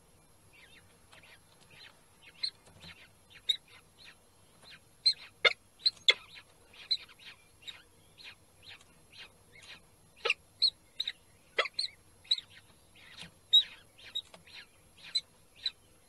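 Peregrine falcons at the nest calling in a long series of short, sharp calls, about two a second, with a few much louder calls among them.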